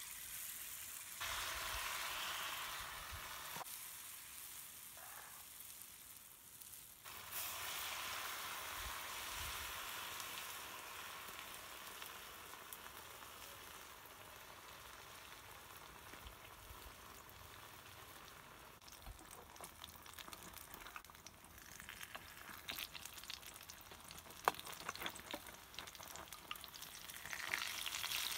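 Wheat-flour fritter batter sizzling in hot oil in a small metal frying pan: the sizzle jumps up as batter goes in, about a second in and again about seven seconds in, then settles to a steady frying hiss. In the last part a metal slotted spoon clicks and scrapes in the pan as the fritters are turned.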